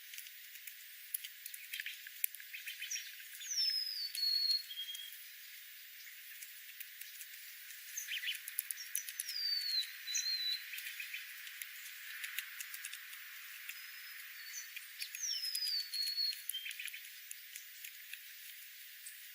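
A small bird calling three times, about six seconds apart: each call is a high whistle sliding down, followed by a short lower note. Many faint clicks and crackles run under the calls.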